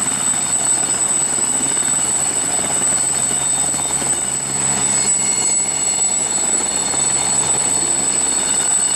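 Helicopter sound: a steady high whine over dense engine and rotor noise.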